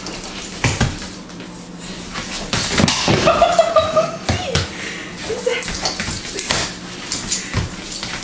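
Small dog whining, with one long, high, steady whine about three seconds in and a shorter one a couple of seconds later, amid irregular light taps and scuffs of its booted feet on a hardwood floor.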